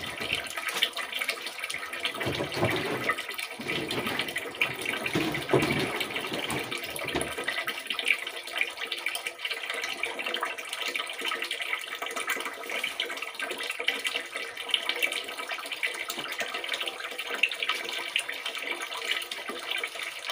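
Water running steadily from a hose into a plastic water tank that is being filled. There is some low rumbling in the first seven seconds.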